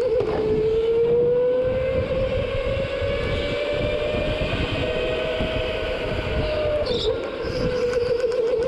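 Go-kart engine heard from on board, pulling at full throttle with its pitch climbing slowly for about seven seconds, then dropping abruptly and wavering as the kart lifts off.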